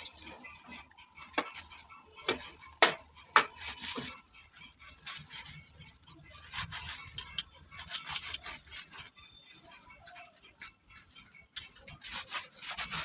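Cleaning sounds: irregular rubbing and scrubbing, with a few sharp knocks and clatters in the first four seconds as things are handled and set down.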